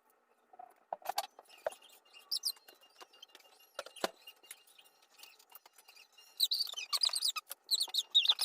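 A few faint clicks and light taps, then a small bird chirping in quick high-pitched runs from about six seconds in.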